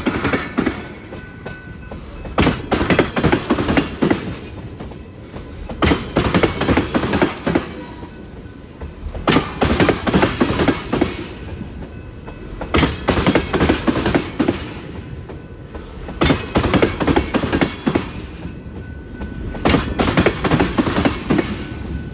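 Wheels of a freight train's tank cars banging hard over rail joints: groups of loud clacks repeating about every three to four seconds, with the rolling rumble of the train between them.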